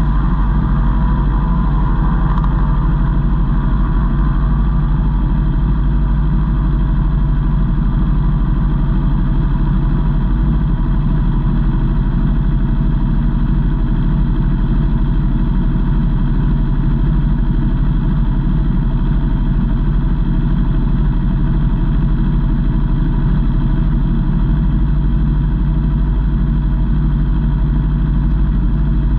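Aprilia Tuono V4 motorcycle's V4 engine running loud and steady at an unchanging pitch, heard from an onboard camera.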